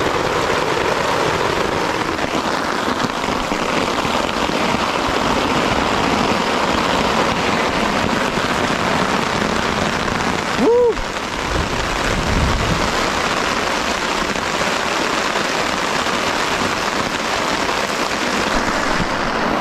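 Heavy rain mixed with marble-size hail pelting down, a dense steady hiss. A man whoops once about ten seconds in, followed by a brief low rumble.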